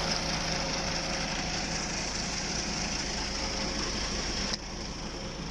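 MAN concrete mixer truck's engine running steadily with a high hiss over it; the sound drops abruptly and becomes quieter about four and a half seconds in.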